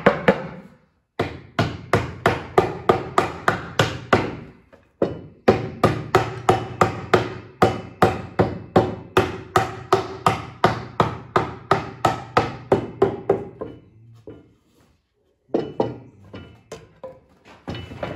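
A hammer rapidly tapping the dovetail joints of a wooden drawer box together, about three to four blows a second. There are two short pauses, and the last few blows near the end are lighter.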